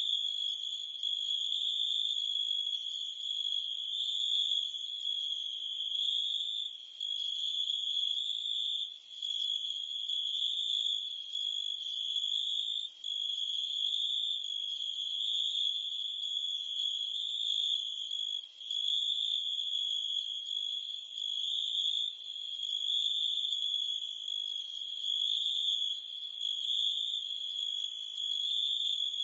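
Crickets and cicadas trilling in a steady, high-pitched chorus, briefly faltering a few times.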